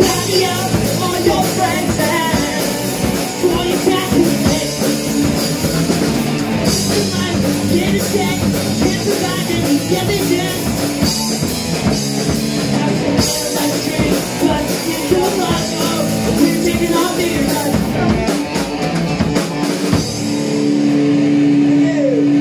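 Live rock band playing loud: amplified electric guitars, bass and drum kit with cymbals. Near the end the song closes on a long held, ringing chord.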